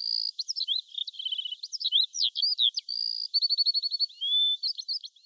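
A songbird singing a rapid, varied song of sweeping whistled notes, slurred phrases and quick trills, with no break between phrases.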